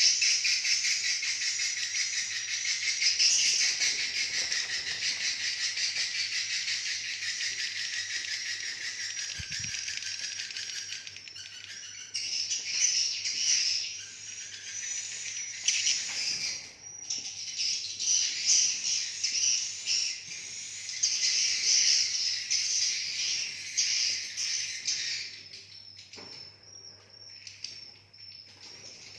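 Swiftlets twittering in a dense, rapid chatter, the roosting call of a swiftlet colony. The chatter rises and falls in waves, with a steady low hum underneath.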